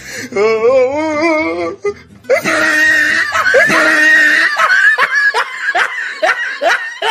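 Music with a sung, wavering line for about two seconds, then a long run of repeated ha-ha laughter over the music.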